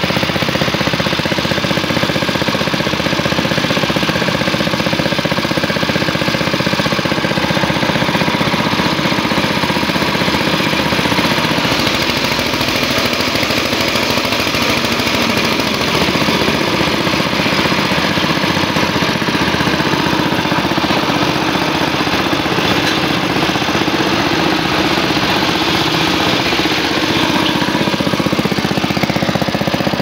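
Sanchin SCN-20 belt-driven high-pressure plunger pump running steadily with a rapid pulsing knock, as its pressure regulator is set and its water jet sprays.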